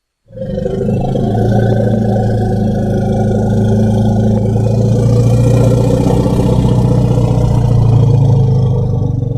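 Baragon kaiju sound effect: a long, low, steady drone at a fixed pitch, starting just after a silent gap and fading out at the end.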